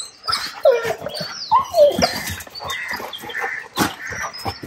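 Several excited dogs whining, yipping and giving short barks in quick succession while they have a cat cornered up a wall.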